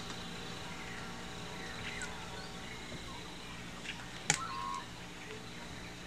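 A paper page of a picture book being turned by hand, over quiet room hum, with one sharp click a little after four seconds in.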